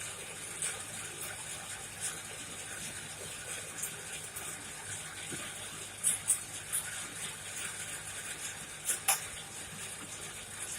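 Coal forge fire burning with a steady rush, broken by scattered sharp crackles and pops, the loudest a few about two-thirds of the way in.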